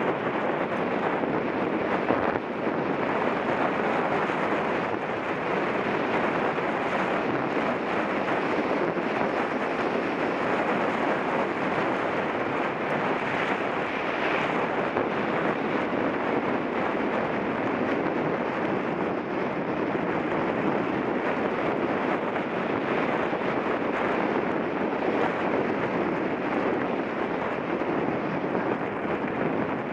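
Steady wind rushing over the microphone of a mountain bike's on-board camera as the bike rides at speed, an even rushing noise with no pauses.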